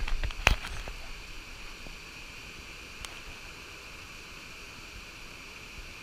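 Low waterfall cascading into a pool: a steady rush of water. A few sharp knocks sound in the first second.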